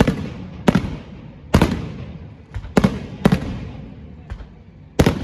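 Fireworks display: aerial shells bursting one after another, about seven sharp bangs in five seconds, a few of them fainter, each trailing off in an echo.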